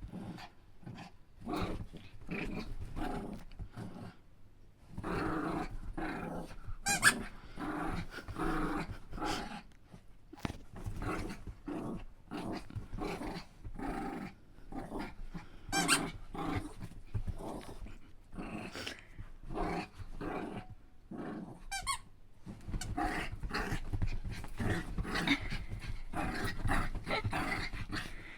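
Domestic dog growling and grumbling in rough play, in short irregular bouts, with a few sharp high squeaks.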